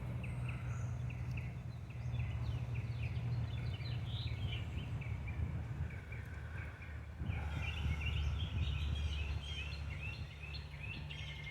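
Small birds chirping and twittering repeatedly over a low rumble of road traffic that swells twice as vehicles pass.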